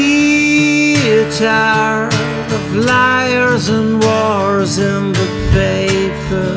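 Steel-string acoustic guitar strummed in a steady rhythm, with a man singing a run of held, wordless notes over it.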